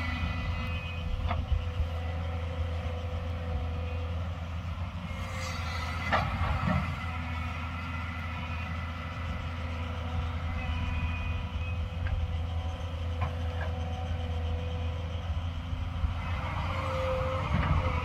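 JCB tracked excavator's diesel engine running steadily as a low drone while the machine digs, with a few sharp knocks from the bucket working the soil.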